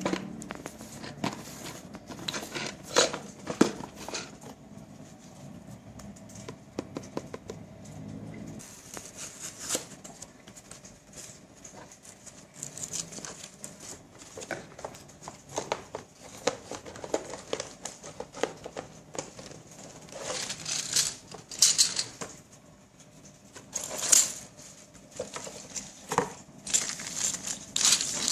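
The cardboard box of a plastic building-brick set is torn open by hand and its bagged parts are tipped out. There is cardboard tearing and rustling, scattered knocks and rattles, and louder bursts of plastic-bag crinkling in the second half.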